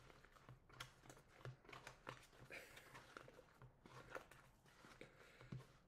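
Faint, irregular wet squishing and crackling of foamy slime made from PVA glue, shaving cream and borax, kneaded by hand in a bowl.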